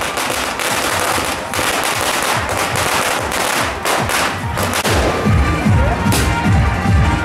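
Firecrackers going off on the ground in a rapid, dense crackle for about five seconds. Then loud music with a heavy drum beat takes over.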